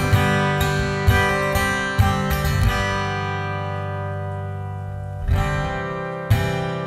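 Acoustic guitar strummed in chords, about one stroke a second; near the middle a chord is left to ring and fade for a couple of seconds before the strumming picks up again.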